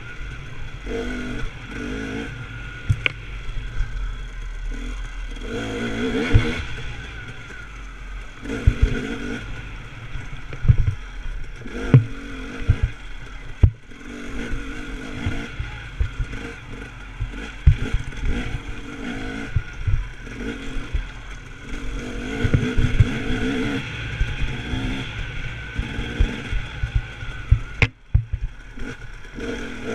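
Enduro motorcycle engine revving up and down repeatedly as the bike is ridden along a bumpy dirt trail, with frequent sharp knocks and thumps mixed in.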